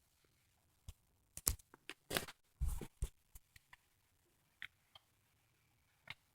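Sewing machine giving a handful of irregular clicks and clunks, bunched about one and a half to three seconds in, then a few more scattered ticks, instead of running with a steady stitching rhythm. It is failing to sew, which the owner suspects is down to incorrect threading.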